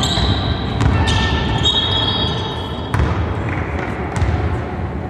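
Basketball play on a hardwood court in a large hall: sneakers squeaking on the floor and the ball knocking on the floor twice, over the echoing noise of the hall.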